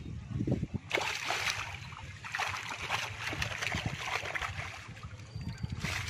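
Water splashing and sloshing as a wading man works a fishing net by hand in shallow water. The irregular splashes start sharply about a second in.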